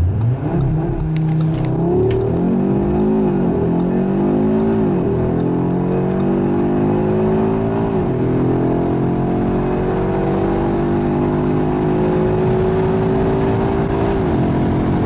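Audi RS3's 2.5 TFSI five-cylinder engine under full throttle in a launch-control start from standstill, heard inside the cabin. The pitch climbs through four quick dual-clutch upshifts, each a short dip, then makes one long pull in fifth gear, and it falls again near the end.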